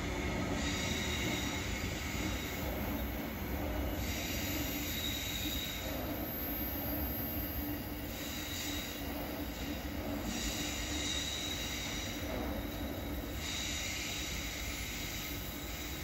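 A Queensland Rail NGR electric passenger train pulling away along the track: wheels squealing in high, thin tones that come and go over a steady rumble, which eases slightly as the train recedes.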